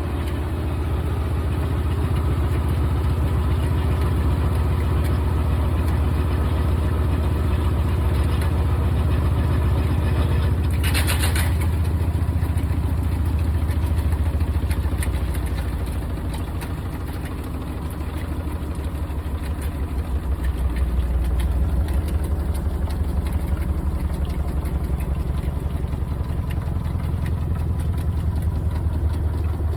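GE top-load washing machine running, a steady low motor hum that eases off and then swells again about twenty seconds in, with a brief hiss about eleven seconds in.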